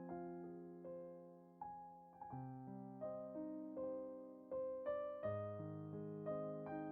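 Soft background piano music: slow notes and chords, each ringing out and fading before the next.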